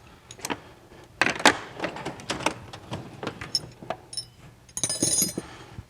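Metal hand tools and hardware clinking and clattering in a quick series of knocks, with a brief ringing metallic jangle near the end.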